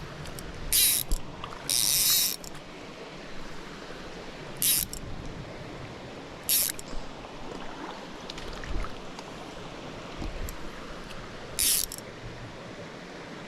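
A fly reel's click-and-pawl drag buzzing in short rasps as line is pulled off it, five times, one of them longer, about two seconds in. A small stream runs steadily underneath.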